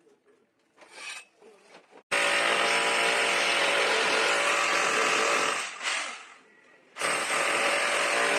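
Handheld electric drill running at full speed in two bursts of about three seconds each, with a steady motor whine over a grinding noise. It starts and stops abruptly each time.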